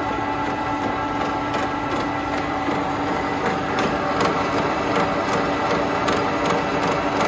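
Barber Colman 6-10 gear hobbing machine running, its hob cutting a brass workpiece: a steady mechanical hum with light, repeated clicking from the gear train.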